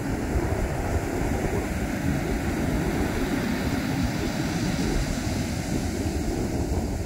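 Wind buffeting the microphone: a steady, fluctuating low rumble with a faint hiss above it.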